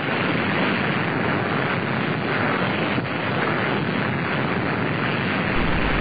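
Loud, steady rushing noise with no tone or rhythm, like wind; a deeper rumble joins in near the end.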